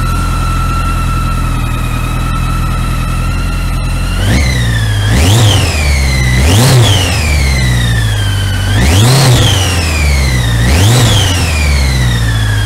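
BMW K100's 987 cc four-cylinder fuel-injected engine idling steadily, then blipped four times from about four seconds in, each rev rising and falling back toward idle. A high whine runs with the engine and climbs with each rev.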